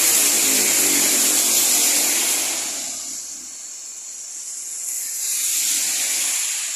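Vehicles passing on a rain-soaked road, their tyres hissing through the spray. One goes by at the start, and after a brief lull a second one swells up and fades away.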